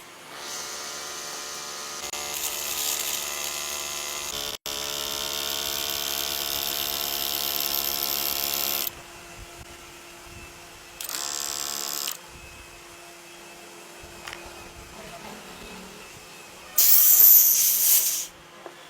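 A handheld electric power tool motor running with a steady whine for about eight seconds, then stopping and being run again in two short bursts, the last one louder.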